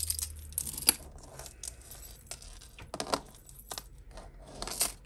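Metal costume jewellery clinking and jingling as it is handled and set down: a run of light clicks and rattles, the sharpest a little under a second in and another cluster near the end.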